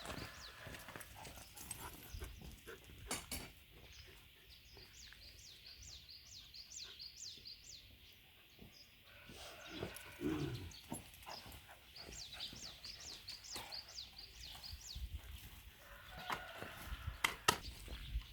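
A white Korean mixed-breed dog (baekgu) gives a brief whine about ten seconds in, with a few sharp knocks. High repeated chirps run in the background for several seconds.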